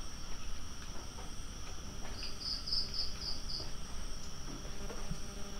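Night insects, crickets, keep up a steady high-pitched trill, and a little over two seconds in one insect gives a quick series of about six loud chirps.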